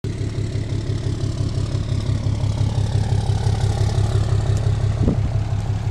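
Pickup truck engine idling with a steady low, pulsing throb, heard up close. A single thump about five seconds in.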